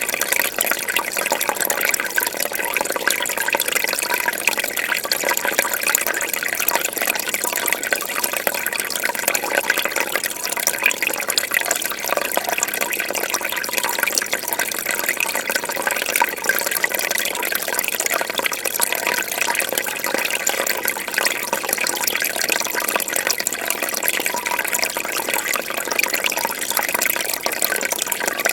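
Fish tank water bubbling and trickling steadily, a dense run of small bubble and splash sounds.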